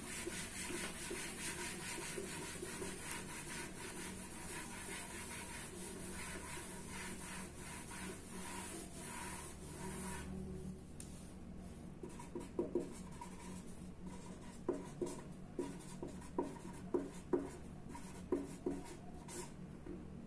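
A board being wiped clean, a steady rubbing for about ten seconds. Then a marker writes on the board in short, separate strokes.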